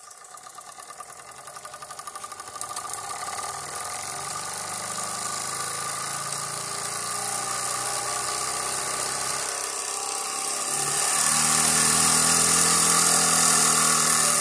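Jensen #70 live steam engine running: a fast, even chuffing with steam hiss that builds steadily and is loudest over the last few seconds.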